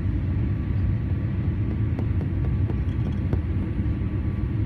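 Boeing 787 cabin noise on descent: a steady low rumble of airflow and engines heard from a window seat, with a few faint ticks about halfway through.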